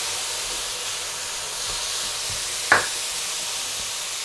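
Diced fresh tomatoes sizzling in hot oil with onions and spices in a frying pan as they are stirred with a wooden spatula: a steady hiss, with one sharp knock a little over halfway through.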